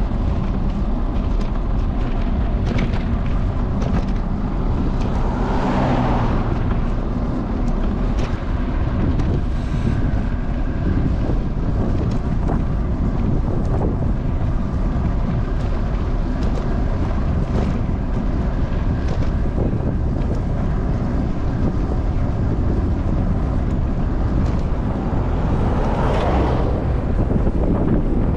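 Wind rushing and buffeting the microphone while travelling along a country road, loud and steady, with two brief swells of rushing noise about six seconds in and near the end.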